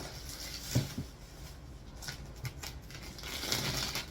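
Packaging being handled and unwrapped by hand, with rustling and crinkling and a few light knocks.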